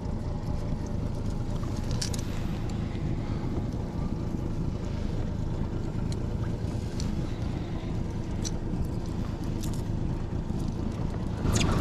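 Steady low rumble of the boat and wind on the microphone, with a few short clicks as the wobbler is worked free of a zander in the landing net.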